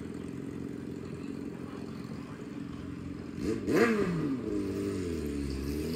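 Motorcycle engine running steadily at low revs, then a quick blip of the throttle about three and a half seconds in, followed by a slower fall and rise in engine pitch over the last two seconds.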